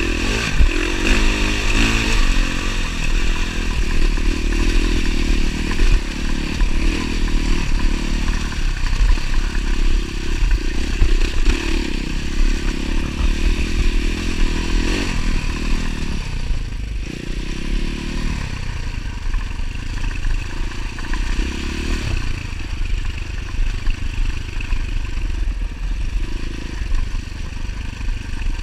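Dirt bike engine running under load, its pitch rising and falling as the throttle is worked on a rocky, rutted climb, with clatter and scraping from the bike over stones. The engine eases off for a few seconds past the middle, then picks up again.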